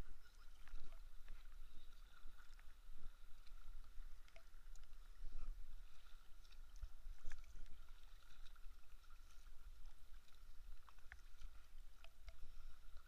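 Kayak paddle strokes: the blade dips into calm lake water with irregular soft splashes and drips, over a low rumble and a faint steady tone.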